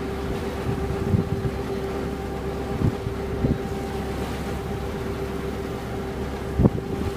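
Motor launch's engine running steadily under way, a constant hum with a low rumble, broken by a few dull low thumps, the loudest near the end.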